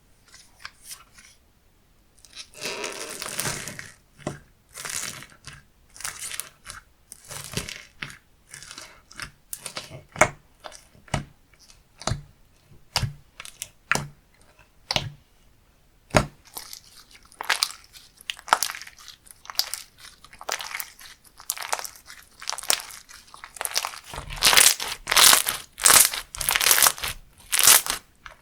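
Hands squishing, folding and pressing a crunchy textured slime, giving a run of sharp crackles and pops. The crackling grows denser and louder near the end.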